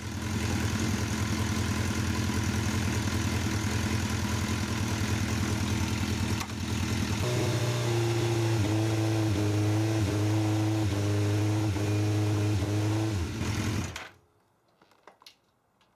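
Suzuki GSX-R 1000 inline-four engine running in sixth gear with the bike stationary. From about 7 seconds in the revs are held higher and the note breaks off briefly several times as the quickshifter's sensor, triggered by pressing the shift lever toward a non-existent seventh gear, cuts the ignition. The engine is shut off suddenly near the end.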